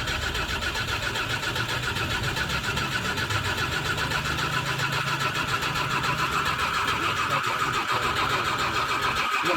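Diesel truck engine running steadily with an even, rapid pulse, on test after its fuel system has been bled of air.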